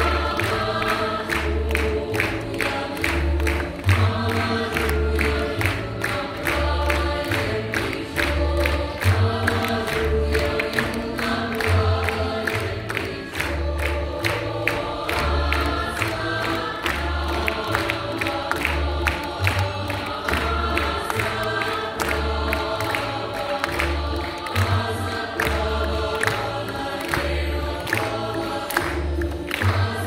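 Music with a choir singing over a steady pulsing bass beat, heard through the hall.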